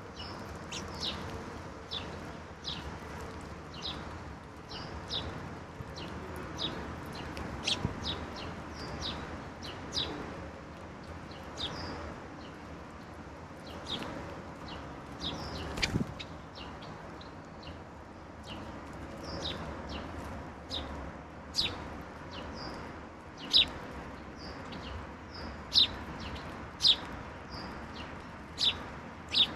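Songbirds calling: a steady run of short, sharp chirps, one or two a second, with a few louder chirps near the end.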